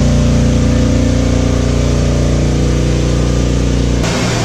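Ship's engine-room machinery running: a loud, steady low drone made of several even hum tones. About four seconds in, it changes abruptly to a rougher, noisier machinery sound.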